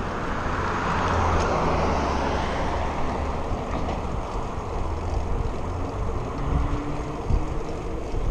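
Steady wind rushing over a GoPro microphone on a moving road bike, with the tyre and engine noise of a passing car swelling about a second in and fading over the next couple of seconds.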